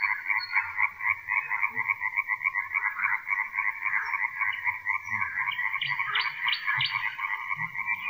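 Dense chorus of many frogs croaking at once, a continuous rapid pulsing with no break.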